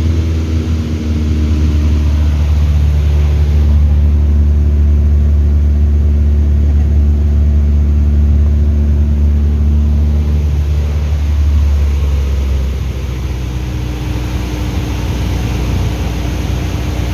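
Light aircraft engine and propeller running steadily, then settling a little lower and quieter from about twelve seconds in.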